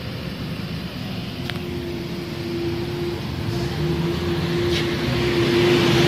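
Electric motor of a stainless-steel fruit and vegetable brushing machine running: a steady hum with a held tone, growing louder over the last couple of seconds. A single sharp click about a second and a half in.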